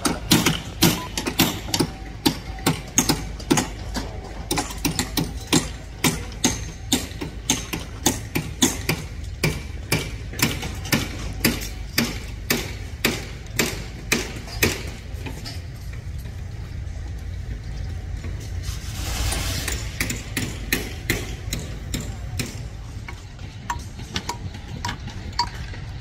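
Hammering on a construction site: sharp blows about two a second, stopping about fifteen seconds in and coming back lighter and more scattered near the end. A steady low rumble runs underneath, with a brief rush of noise about three quarters of the way through.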